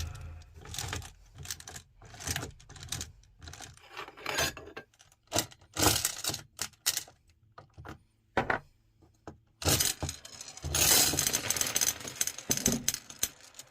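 Glass marbles clinking and clattering in irregular bursts of sharp clicks, with a longer, denser clatter about ten seconds in.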